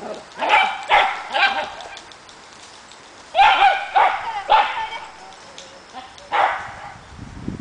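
A dog barking: three barks about half a second apart early on, three more around the middle, and one more near the end.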